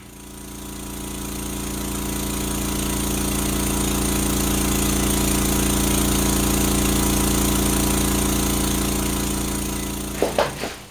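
Steady electronic buzzing drone, a low hum with stacked even tones. It swells up over the first few seconds and fades away near the end.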